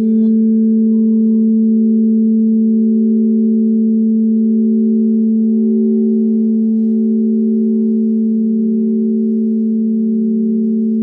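Crystal singing bowls holding a sustained chord of two pure tones, a low one and a higher one, at an even loudness. The higher tone wavers in a slow, regular pulse.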